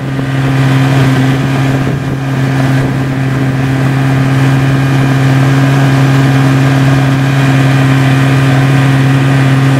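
Tiller-steered outboard motor running at a steady cruising speed, pushing a flat-bottom boat along, its drone holding one even pitch throughout.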